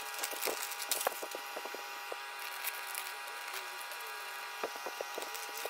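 Masking paper and blue painter's tape being peeled and crumpled off a freshly painted air cleaner housing: irregular crinkling and crackling, over a steady background hum.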